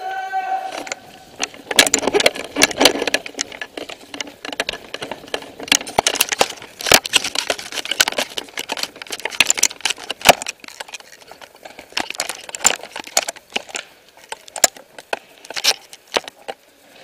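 Footsteps crunching over rubble, grit and dry leaves, with loose gear and the rifle rattling as the wearer moves, giving a string of irregular sharp clicks and scrapes.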